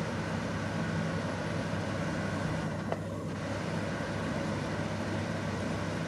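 Claas Lexion 740 combine harvester running steadily under load while cutting and threshing wheat, a continuous engine and machinery drone, with a brief click about halfway.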